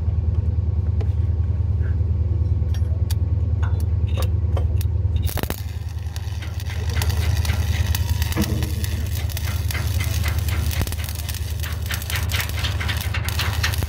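Overhead (4G) stick welding on a steel hull. The arc strikes about five seconds in, then crackles and sputters steadily over a steady low hum.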